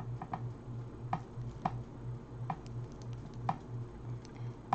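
Small sharp clicks and taps of a bracelet being handled and turned over, scattered irregularly, over a faint low hum that pulses at a steady, even rate.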